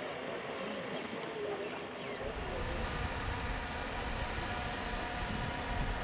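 Outdoor pond ambience with faint distant voices. About two seconds in it changes to wind buffeting the microphone as a low rumble, with a faint steady hum above it.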